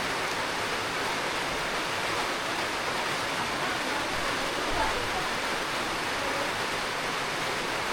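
Steady rain, a constant even hiss with no breaks.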